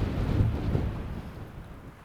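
Wind buffeting the microphone outdoors: a loud, low rumbling rush that eases off in the second half.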